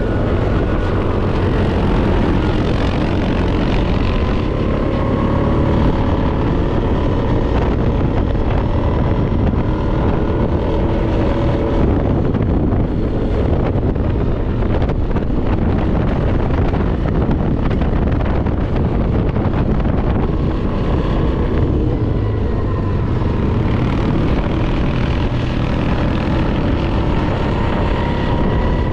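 Off-road vehicle engine running while under way on a trail, its pitch slowly rising and falling with speed, with wind rushing over the microphone.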